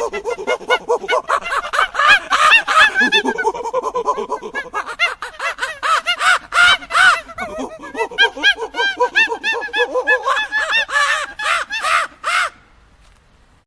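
Birds calling rapidly and continuously, many short pitched calls overlapping, until they cut off near the end.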